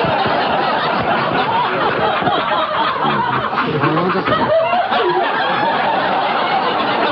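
Studio audience laughing and chuckling, many voices at once.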